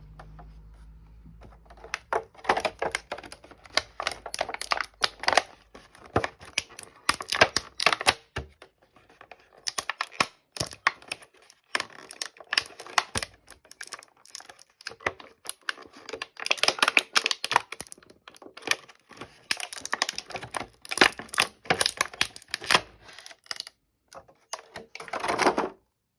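Action figure packaging being handled and opened: irregular runs of crinkling, crackling and clicking of plastic and cardboard, in clusters with short pauses, stopping suddenly near the end.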